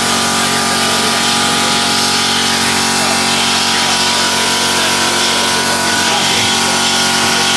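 Steady machine hum and whir: several constant tones over a loud, even hiss, with no change in pitch or level.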